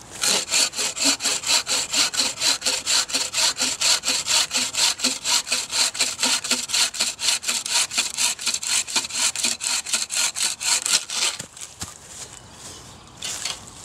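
A folding bucksaw with a 24-inch Bahco green-wood blade cutting through a green birch log in quick, even strokes, about five a second. The sawing stops about eleven seconds in as the piece is cut through.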